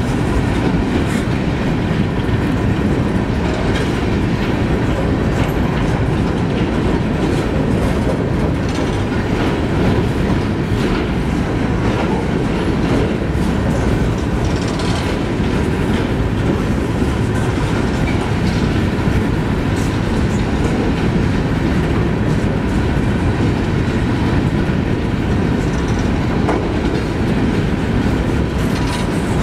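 Freight train of open-top hopper cars rolling steadily past close by: a continuous heavy rumble of wheels on rail, with scattered clicks and knocks as the wheels pass over the track.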